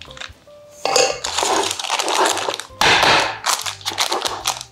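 Scraping and rustling from a paper-lined metal loaf tin being handled as batter is spread in it, with the tin clattering against a wooden bench. It comes in three noisy bouts, starting about a second in.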